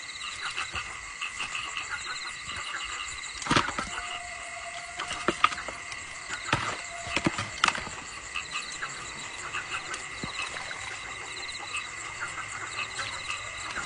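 Frogs calling in a dense chorus of rapid repeated croaks, over a steady high insect drone, as in a flooded rice field after rain. A few sharp knocks stand out above the chorus.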